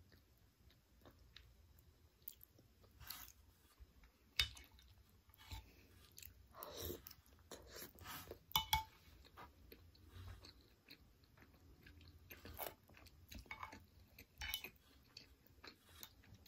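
Close-up chewing and mouth sounds of someone eating soft durian flesh and sticky rice in coconut milk, with scattered short clicks and smacks; the loudest come about four and a half and eight and a half seconds in.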